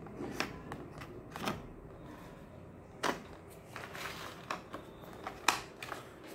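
Wax crayons and other art supplies clicking and knocking against the plastic trays of an art set as they are handled: scattered light clicks, the sharpest about five and a half seconds in.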